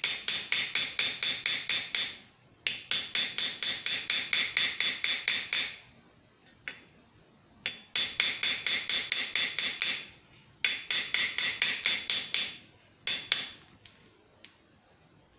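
Small hammer tapping rapidly on a brass .50 BMG cartridge casing with a steel ball bearing inside, about eight light blows a second in four runs with short pauses between, each blow with a metallic ring. The tapping stretches the brass over the ball so that the ball will come loose.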